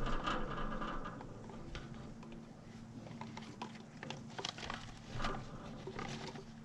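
Scattered light clicks, taps and scrapes of hand tools or parts being handled, over a faint steady low hum.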